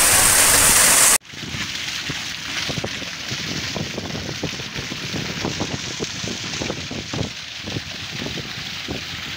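Ballast water gushing out of a ship's ballast-tank air vent head and splashing down, the sign that the tank is pressed full during its pressure test. A loud, even rush of water stops suddenly about a second in and gives way to a quieter, irregular splashing outflow.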